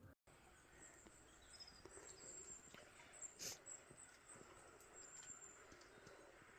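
Near silence: faint outdoor ambience with a thin, steady high tone and a few faint ticks.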